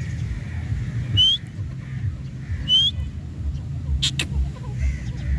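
Grey francolin calling: two short, shrill rising whistles about a second and a half apart, then two brief harsh calls near the end, over a steady low rumble.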